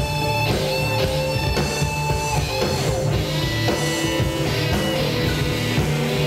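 Rock band playing live: electric guitar over bass and drums, with sustained guitar notes.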